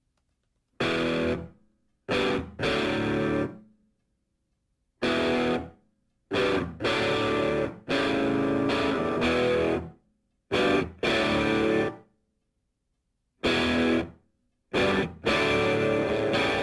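Distorted electric guitar playing chords in separate stabs and held chords, each cut off into complete silence before the next.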